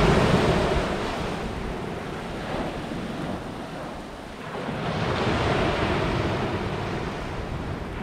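Sea waves breaking and washing up a sandy beach. One wave's wash fades over the first few seconds, and the next surges in about halfway through.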